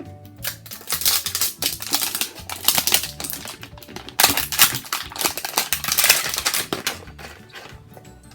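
Toy packaging being torn and crinkled open by hand: dense rapid crackling and clicking, loudest in the middle, over steady background music.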